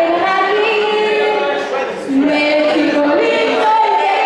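A crowd of young people singing together in unison, holding long notes and sliding between them.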